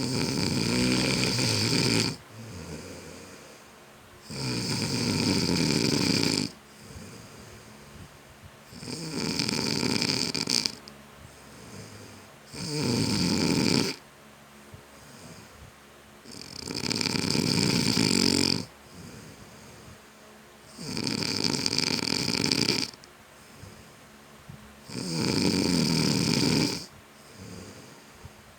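A sleeping man snoring heavily: a loud, rattling snore about every four seconds, seven in all, each lasting a second and a half to two seconds, with a soft breath between them.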